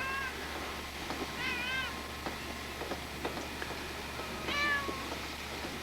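Domestic cats meowing: a few short, high, rising-and-falling meows, one at the start, two close together about a second and a half in, and one more near the end.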